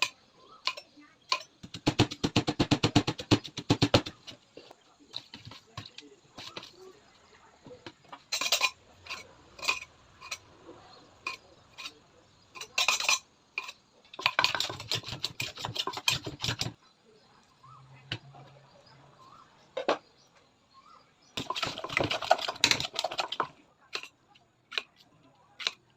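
Eating utensils clicking and scraping against a dish in quick bursts of rapid clicks, with scattered single clinks in between.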